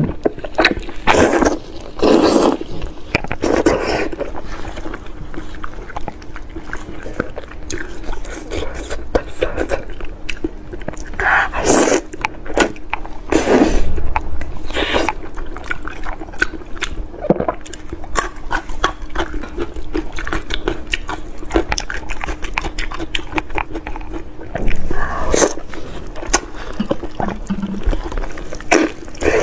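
Close-up eating sounds of braised pork hock: wet, sticky smacking, sucking and chewing as the fatty meat and skin are bitten and torn off the bone, with irregular sharp mouth clicks.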